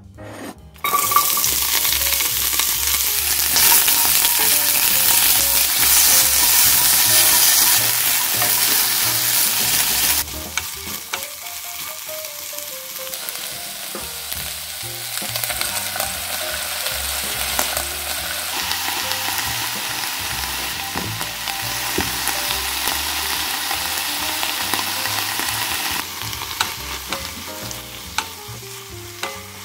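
Chopped onion and green chilli stir-frying in oil in a frying pan. A loud sizzle starts suddenly about a second in, eases off at about ten seconds, and goes on more quietly while the vegetables are stirred with a spatula.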